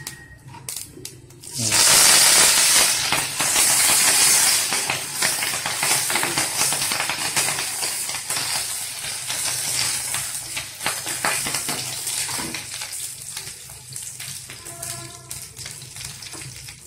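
Curry leaves dropped into hot sesame oil with mustard and fennel seeds, bursting into a loud sizzle about a second and a half in, with scattered crackles and pops, then slowly dying down.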